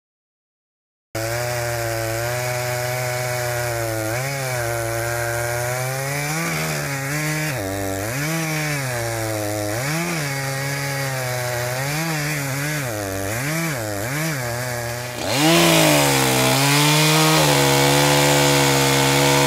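Echo CS-590 Timber Wolf two-stroke chainsaw cutting wood, starting about a second in, its engine pitch dipping and recovering again and again as the chain bogs under load in the cut. About fifteen seconds in the sound jumps louder and holds at higher, steadier revs as it saws through a log.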